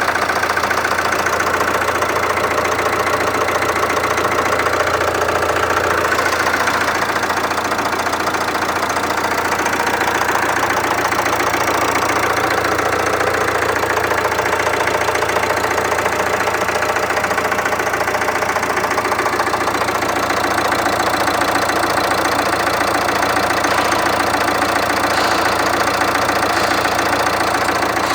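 Jeep Compass 2.0 four-cylinder turbodiesel engine idling steadily, a normal idle sound for this engine.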